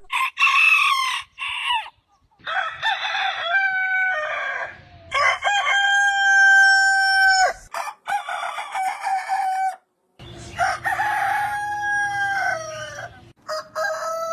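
Roosters crowing, about five long crows one after another with abrupt cuts between them. Each crow is held steady and then drops in pitch at the end.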